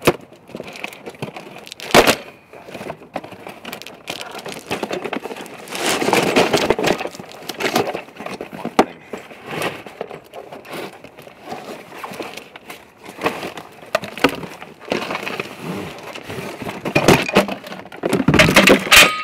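Cardboard box being handled and pulled open, crackling and rustling, with irregular sharp knocks as a trolley jack is taken out of it; the sharpest knock comes about two seconds in.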